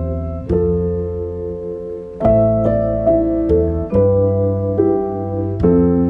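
Background piano music: notes and chords struck every half second to a second and a half, each ringing out and fading before the next.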